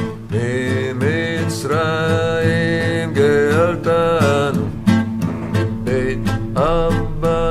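A man singing a Chabad Passover song, accompanied by a strummed acoustic guitar.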